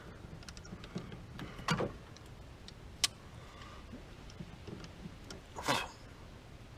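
Small clicks and scrapes of a hand tool tightening the clamp bolt on a car battery terminal, with a sharp click about three seconds in and a brief louder scrape near the end.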